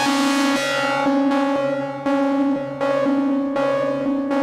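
Modal Electronics Cobalt5S synthesizer playing a sustained chord through its chorus effect while the chorus settings are adjusted. The chord is re-struck about every three-quarters of a second.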